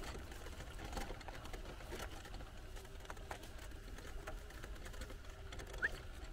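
Electric wheelchair rolling along a dirt track: a steady low rumble and faint motor hum, with scattered small clicks and crunches from the tyres over the ground. Near the end there is a single short rising whistle.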